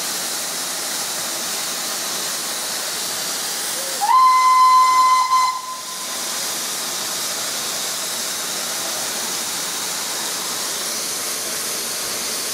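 Southern Railway S15 class 4-6-0 steam locomotive No. 847: a steady hiss of steam, with a single whistle blast about four seconds in. The blast lasts about a second and a half, sliding up briefly as it opens and then holding one steady note.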